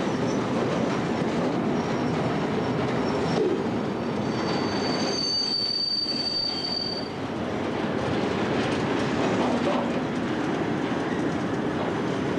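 Railway tank wagons rolling along the track, their wheels rumbling steadily on the rails. A high, steady wheel squeal rings out from about four and a half to seven seconds in, with fainter squeals in the first few seconds.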